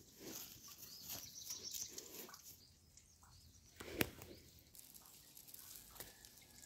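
Faint rustling and handling of a cloth bundle of dough bait being wrapped and tied, with a single sharp click about four seconds in.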